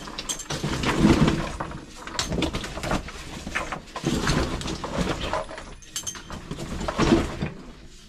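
A person crawling through a tight rock crevice: stones and gear clink and scrape against rock in many short clicks, with hard breathing swelling about every three seconds.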